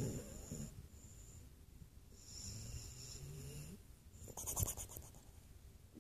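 Snoring in slow breaths. One snore fades out at the start, a quieter one runs from about two to four seconds in, and a short, louder one comes at about four and a half seconds.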